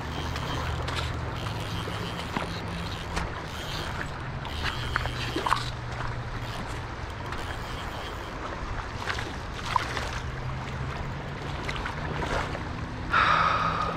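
Steady rush of river current with low wind rumble, small splashes and clicks here and there, and a brief louder sound near the end.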